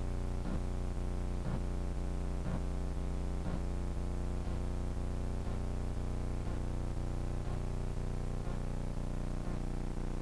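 Steady electrical hum and buzz, many fixed low tones held without change, with a faint tick about once a second.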